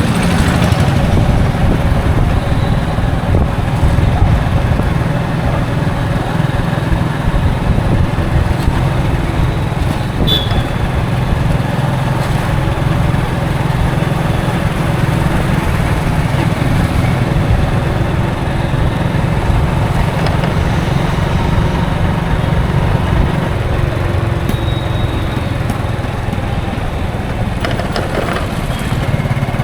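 Express passenger bus on the move: steady engine and road noise, strongest in the low range, with a brief high chirp about ten seconds in.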